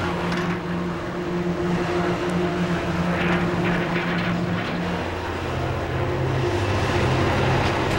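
Hydraulic excavator's diesel engine running steadily while clearing tornado debris, with some crunching of wreckage around the middle. The engine note drops lower about five seconds in.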